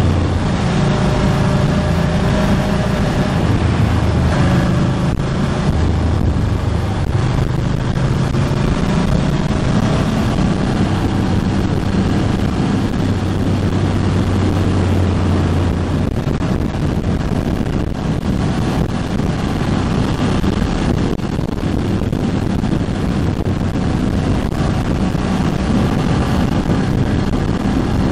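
Ducati Hypermotard 1100S's air-cooled L-twin running under way while being run in, its note shifting in pitch with throttle and gear changes, over a steady rush of wind across the microphone. The engine note is strongest in the first half and sits lower under the wind later on.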